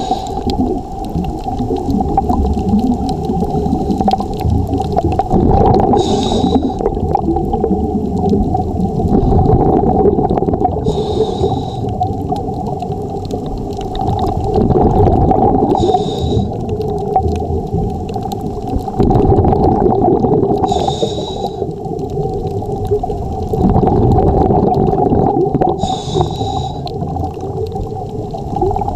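Scuba diver breathing through a regulator, heard underwater: a short hiss of inhalation about every five seconds, with the gurgle of exhaled bubbles between them, over a steady hum.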